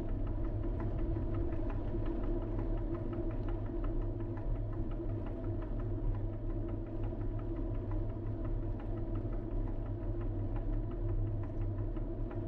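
Steady low hum of a car's engine and tyres, heard from inside the cabin while driving slowly, with faint ticking a few times a second over it.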